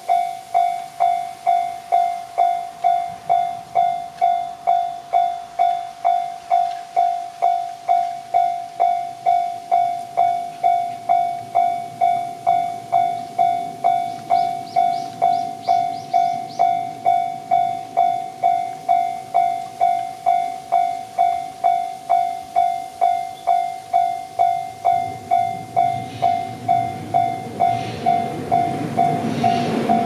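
Japanese railway level-crossing alarm ringing its electronic bell, a steady repeating ding a little under twice a second. Over the last few seconds the rumble of an approaching train builds and grows louder.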